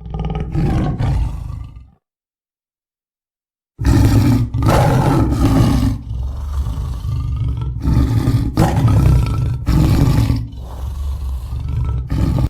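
Tiger growling and roaring: a short deep growl, a silent gap of about two seconds, then a long run of loud growls that swell and ease one after another.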